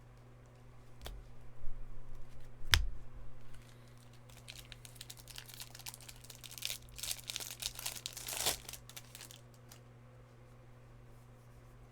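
Trading cards and their plastic wrapping being handled: two sharp taps in the first few seconds, then a long stretch of crinkling and rustling plastic.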